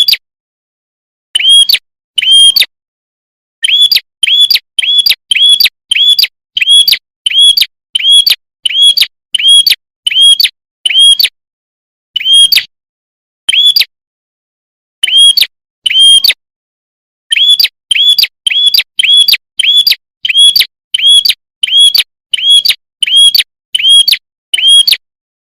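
Recorded lure call of a prenjak kepala merah (red-headed prenjak), a small songbird: loud, clear, short chirps repeated about two a second in runs broken by short pauses, with dead silence between the notes.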